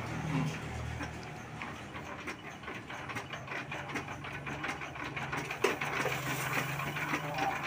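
S1115 single-cylinder diesel engine running steadily, with a rapid, even beat of firing strokes over a low hum.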